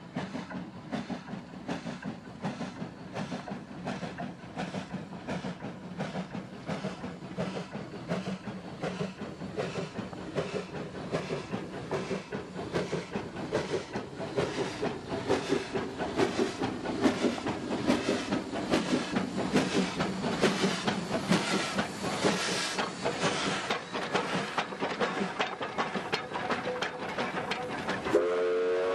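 Steam locomotive working hard at the head of a freight train, its exhaust chuffing in a steady beat that grows louder as the engine comes close and passes, then the wagons rolling by. About a second before the end a steam whistle starts, a held chord of several tones.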